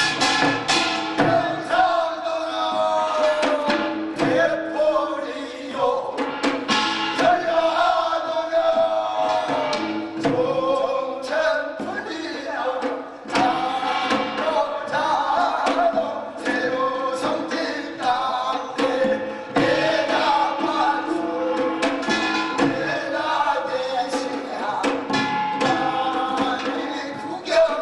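A man singing a bi-nari blessing chant over samul nori percussion: fast, continuous strikes of small gong and drums under the wavering sung melody.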